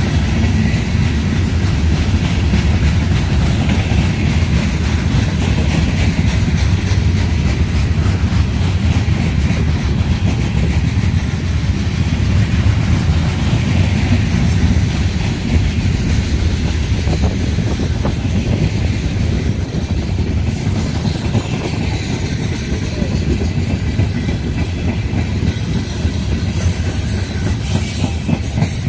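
Norfolk Southern freight train of coal hopper cars rolling past with a steady rumble and the clatter of steel wheels on the rails.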